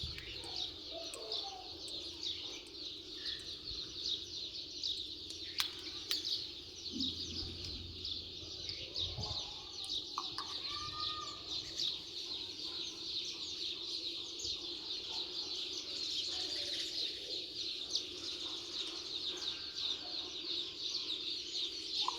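A flock of Golden Misri chicks peeping continuously, a dense chorus of short high cheeps, with a few lower clucking calls mixed in.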